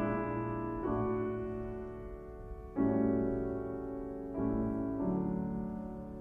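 Slow piano music: sustained chords struck a few seconds apart, each left to ring and fade.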